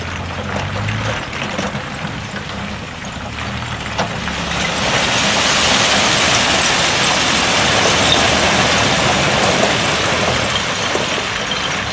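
Heavy diesel engine of earthmoving machinery running at low revs. About five seconds in, a louder steady rushing noise of loose soil and stone moving joins it and lasts to the end.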